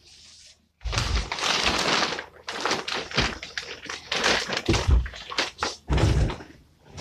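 Thumps and rustling from a child climbing down from and jumping off a wooden bunk bed, with several heavy thuds through the stretch.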